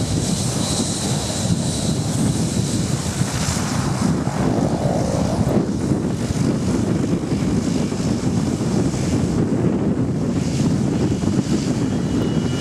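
Boeing 737-200's Pratt & Whitney JT8D jet engines running with a steady rumble as the airliner rolls and taxis close by on the snowy runway, a faint high whine fading early on. Wind buffets the microphone.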